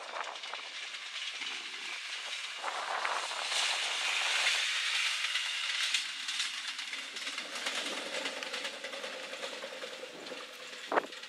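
Ex-Deutsche Bahn Class 628 diesel multiple unit passing at speed: a rush of wheel and rail noise that swells as it goes by about four seconds in, then fades as it runs away, leaving a steadier engine drone. A single sharp click sounds near the end.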